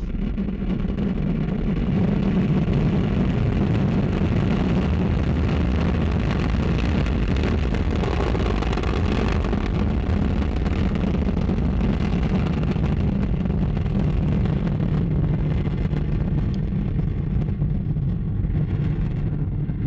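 Ariane 5 ECA rocket lifting off and climbing: its two solid rocket boosters and Vulcain main engine burning, a loud steady low rumble.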